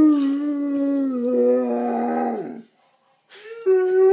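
Basset hound howling: one long howl of about two and a half seconds that slowly falls in pitch, a short pause, then the next howl beginning near the end.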